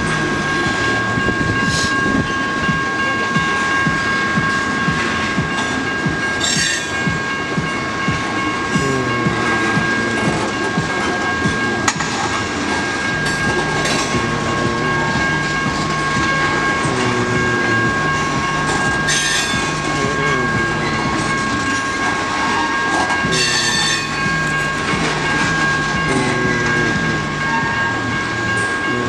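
CSX freight train rolling through the grade crossing, its cars clattering over the rails with sharp knocks every few seconds. A steady high-pitched ringing tone runs under it throughout.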